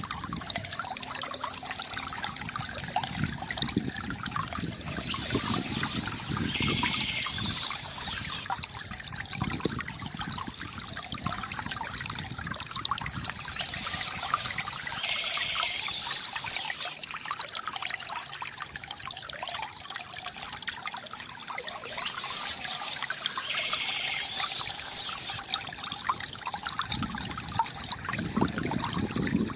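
Small stream of water trickling steadily.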